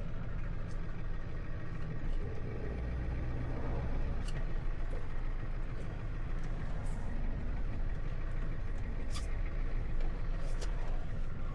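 Tow truck's engine idling steadily, a low even rumble with a few faint ticks.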